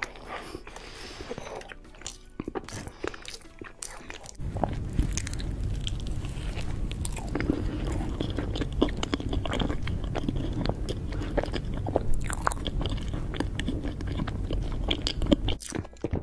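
Close-miked eating of frosted rainbow layer cake: wet chewing and biting with many small mouth clicks. About four seconds in, the sound jumps louder, with a low rumble under denser clicks. It drops back to the quieter chewing near the end.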